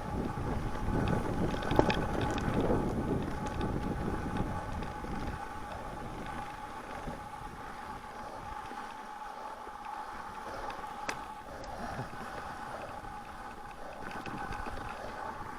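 Wind buffeting the microphone while a mountain bike rolls along the trail, with scattered clicks and rattles from the bike. The wind rumble is heaviest in the first few seconds and eases after about five.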